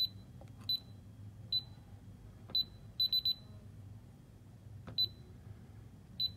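DSC Maxsys alarm keypad giving short, high beeps as its keys are pressed, about eight beeps at uneven intervals, with a quick run of three about three seconds in.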